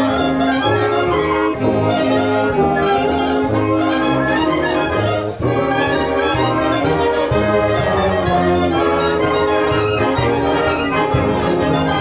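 A brass band of brass and woodwind players, with trumpets and trombones prominent, playing a piece together at full volume, with a brief dip about five seconds in.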